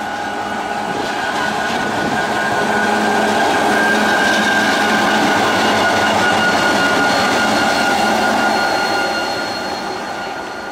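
GT22 diesel-electric locomotive running light past at close range, its diesel engine and wheels growing louder as it nears and fading as it moves away, with a steady high whine.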